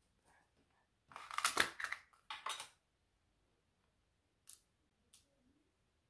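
Thick trouser fabric rustling as hands spread and smooth it out on a table: two longer rustles, then two short, fainter brushes near the end.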